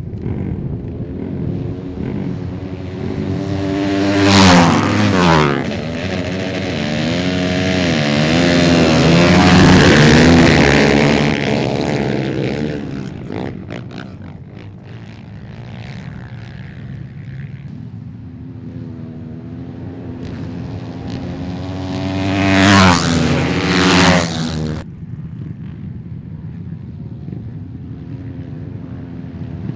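Ice-racing motorcycles on studded tyres, engines revving hard as they race past through the turns. There is a loud close pass about four seconds in and another near the three-quarter mark, the engine pitch dropping as the bikes go by. The sound breaks off abruptly just after the second pass.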